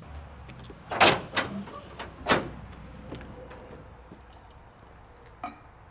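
Pickup tailgate of a Jeep Comanche being unlatched and lowered by hand: three loud metal clunks in the first couple of seconds, then a lighter knock near the end.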